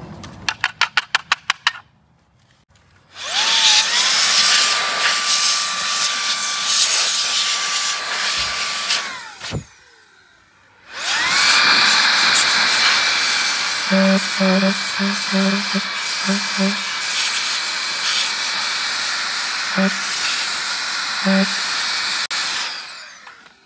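A small handheld electric tool motor runs twice: each time it spins up with a whine that rises and then holds steady over a rushing noise, then winds down. It is preceded by about ten quick clicks, and several short low buzzes sound during the second, longer run.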